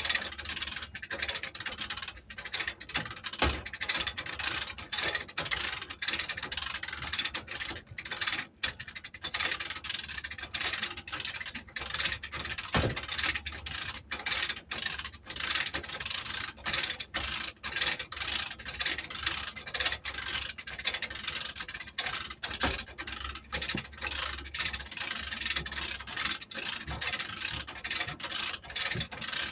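Lever chain hoist (come-along) being worked stroke after stroke: rapid ratchet clicking and chain rattle, with a few heavier knocks, as it pulls a heavy generator alternator along its base.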